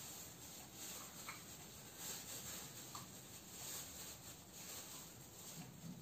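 Faint soft rustling and scratching of cockatiels preening their feathers, with a few faint short ticks, over quiet room tone.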